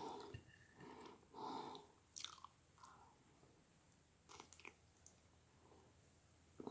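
Faint close-miked mouth sounds of someone chewing soft dessert, with a few small wet clicks and smacks.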